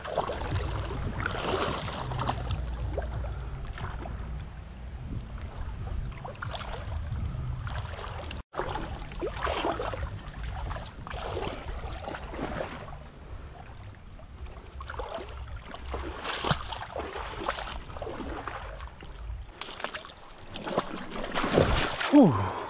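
Water sloshing and splashing as legs wade through a shallow river, over a low rumble that drops away near the end. A louder splash comes near the end.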